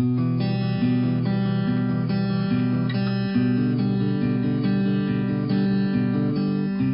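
Background music: strummed acoustic guitar with a steady rhythm, starting suddenly at the very beginning.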